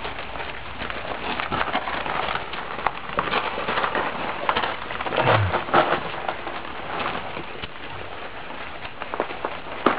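Month-old Chesapeake Bay retriever puppies moving about, making an irregular scratching, clicking and rustling crackle, with a brief low falling sound about five seconds in.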